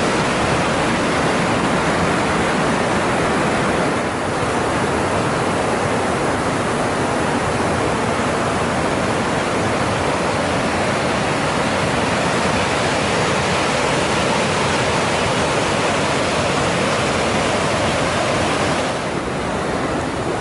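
The Temperance River's whitewater rushing through a narrow rock gorge: a loud, steady rush of water that eases a little near the end.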